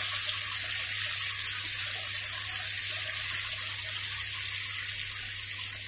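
Sliced onions sizzling in hot oil in a kadhai, just added for light frying: a steady hiss that eases off slightly near the end.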